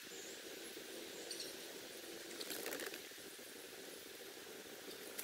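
Hooked hybrid striped bass splashing and thrashing at the surface of the water, with a short burst of splashing about two and a half seconds in.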